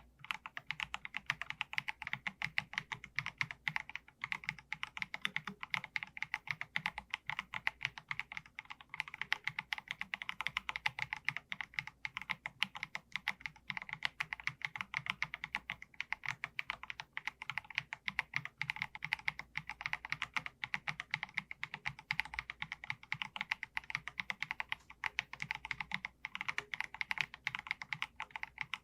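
Fast, continuous typing on an Akko MG108B full-size mechanical keyboard with Akko V3 Piano Pro switches: a dense, unbroken run of keystroke clacks.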